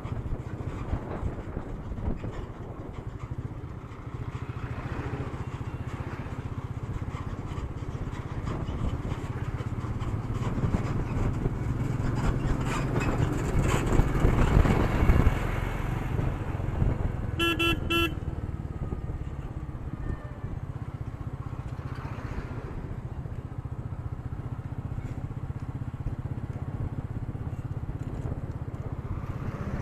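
Royal Enfield Meteor 350's single-cylinder engine running at road speed with road noise, picked up by an action camera's built-in microphone. A louder passing vehicle swells up about halfway through, then two short horn beeps sound just after.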